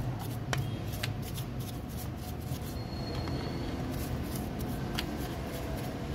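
Stiff hand brush scrubbing grease off the engine's timing area and cylinder head, a steady rasping of bristles on metal with a few sharp clicks as it knocks against parts.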